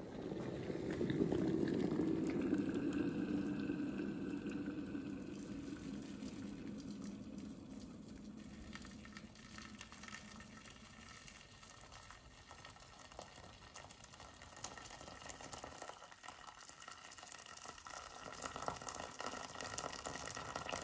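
Boiling water poured in a steady stream from a kettle into a large round aluminium cake pan, splashing onto the pan's metal floor around a smaller cheesecake tin to make a water bath. The pour is loudest in the first few seconds, then carries on more evenly.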